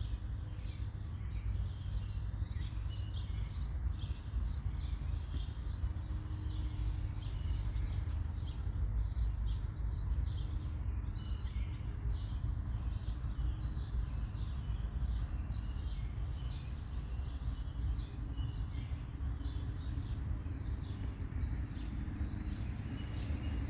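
Small birds chirping repeatedly in short calls throughout, over a steady low rumble.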